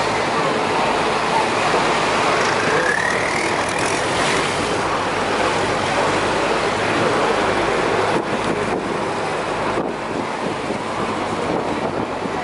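Motorboat under way on a river: the steady rush of water churning along the hull and wind, over the drone of the boat's engine. A brief rising whine comes about two to three seconds in, and the noise eases slightly after about eight seconds.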